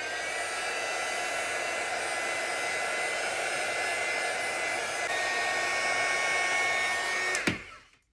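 Craft heat tool (embossing heat gun) blowing steadily with a thin fan whine, drying water-based distress ink on paper. It is switched off with a click near the end and quickly spins down.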